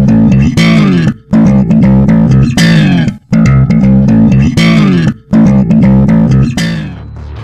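Loud rock music: a heavy bass and guitar riff with bending, sliding notes, broken by short stops about every second or two.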